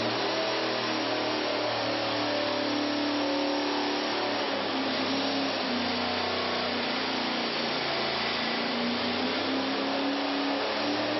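Chevrolet LT1 6.2-litre small-block V8 running steadily on a test stand. It gives a constant mechanical drone whose pitch wavers slightly up and down.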